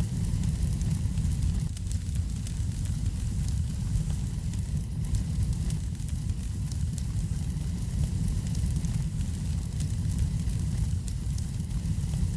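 Wood fire burning in a fireplace: a steady low rumble with many small, sharp crackles and pops.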